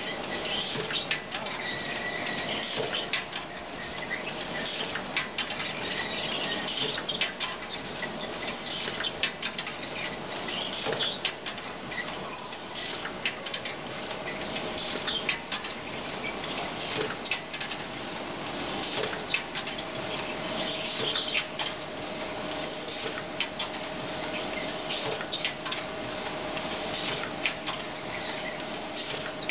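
Automatic sugar cone baking machine running: a steady clatter of many small clicks and rattles from its moving parts, over a faint steady hum.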